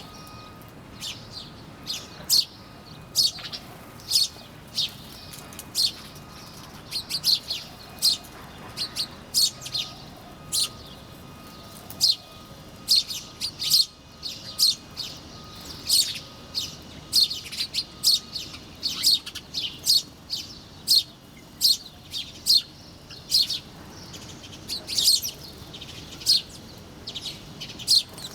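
Small birds chirping: many short, sharp, high chirps, often sweeping down in pitch, coming in quick irregular bursts of several at a time.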